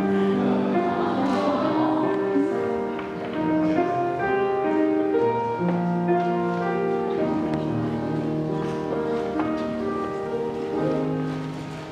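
Slow instrumental music of long held notes that change one after another, with no singing.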